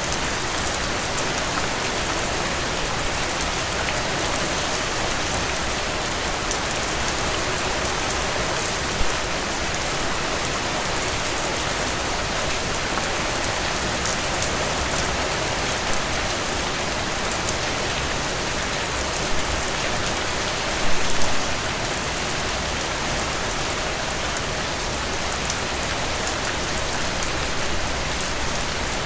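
Steady rainfall: an even hiss of rain with many sharp drop ticks landing on a surface. About two-thirds of the way through, a short cluster of louder drop hits stands out.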